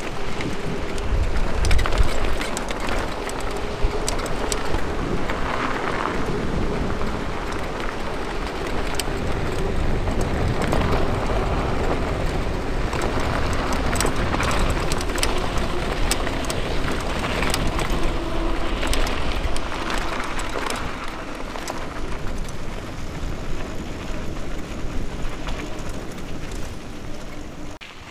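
Mountain bike tyres rolling fast over a sandy gravel track, crunching and crackling with many small rattles and clicks from the bike, under steady wind rumble on the microphone.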